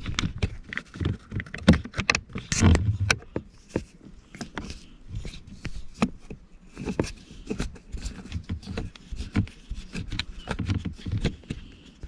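Phillips screwdriver working a small screw out of a car's plastic shifter console: an irregular run of small clicks and scrapes of metal on plastic, with a few duller knocks.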